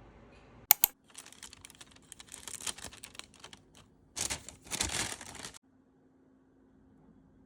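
Handling noise: two sharp clicks, then a few seconds of crinkling and clattering in irregular bursts that stop abruptly a little past halfway, leaving a faint steady hum.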